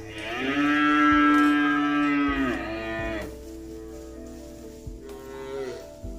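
A cow mooing twice: one long, loud moo that drops in pitch at its end, then a second, fainter moo about a second and a half later.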